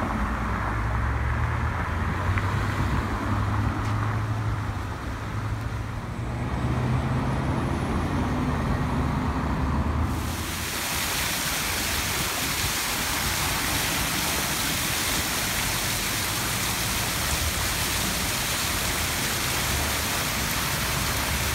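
Road traffic on a city street: car engines passing with a low, uneven rumble. About ten seconds in it cuts suddenly to a fountain's jets splashing into its basin, a steady rushing hiss.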